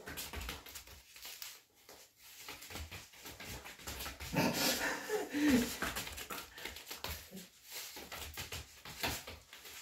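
A dog whining briefly about halfway through, a wavering cry that falls in pitch, over a patter of paws and footsteps tapping on rubber floor mats as the dog works at its handler's side.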